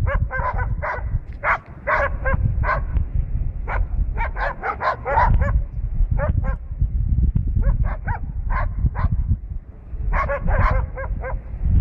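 Dogs barking at a brown bear in quick volleys of short barks, several a second, with brief pauses between bursts, over a steady low rumble.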